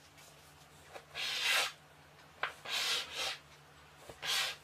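Round metal cutter pressed and twisted through a rolled baklava dough strip on a floured board to cut crescent shapes: three short, soft scraping rubs, with a small click between the first and second.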